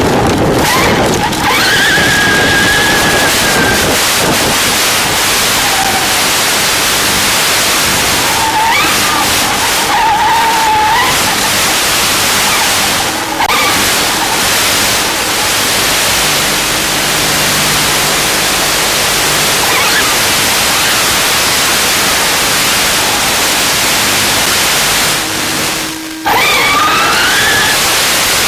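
Loud steady hiss like radio static, with a faint whine that rises and falls a few times: the Traxxas Slash 4x4 RC car's electric motor being throttled. The hiss drops away briefly near the end, then returns.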